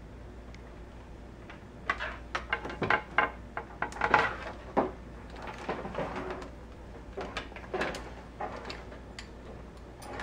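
Plastic tubing being handled and fed through a sink's faucet hole: irregular light clicks, taps and scrapes of tubing against the sink deck, busiest in the middle.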